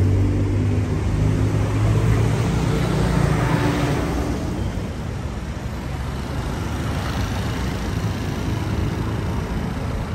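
Road traffic: a motor vehicle's engine runs close by with a steady low hum that fades after about four seconds, leaving a steady wash of street traffic.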